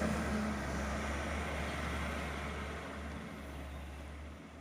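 Heavy machinery engines from the excavators and dump trucks running steadily as a low hum, fading gradually toward the end.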